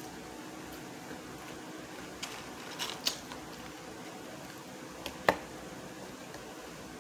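A person eating French fries: faint chewing and mouth sounds, with a few short, sharp clicks and taps from handling the fries and a small sauce cup. The sharpest click comes about five seconds in.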